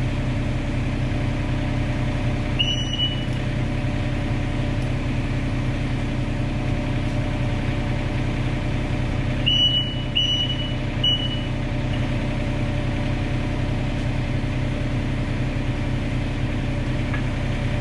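Komatsu PC27 mini excavator's diesel engine running steadily while the track drive turns to force the rubber track off its idler. A few short, high squeaks come through, once about three seconds in and several times around ten seconds in.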